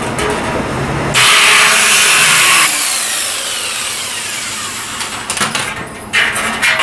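Corded jigsaw cutting through the thin sheet steel of a 55-gallon drum, a loud rasping buzz for about a second and a half as the cut is finished, then the motor winding down with a falling whine. Knocks and clatter follow near the end.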